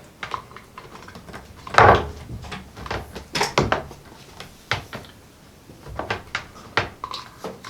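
Scattered knocks, clicks and rustles of cables being handled and a power plug pushed into a power strip, the loudest knock about two seconds in.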